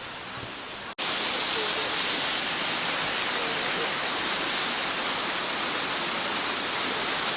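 Waterfall rushing, a steady hiss of falling water. It jumps much louder after a sudden cut about a second in, then holds steady.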